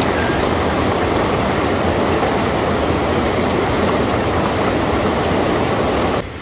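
Floodwater from an overflowing reservoir pouring over a concrete spillway and rushing as white water through a rocky channel close by: a loud, steady rush that cuts off about six seconds in.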